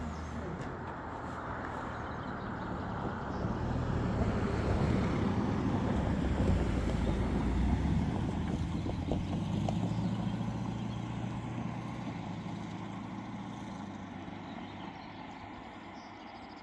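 Low engine rumble of a passing vehicle, swelling over the first several seconds and then slowly fading away.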